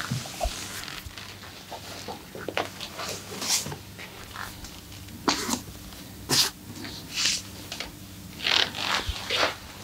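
Hands working on bare skin during a massage: a series of short, irregular slaps and rubs, coming more often in the second half.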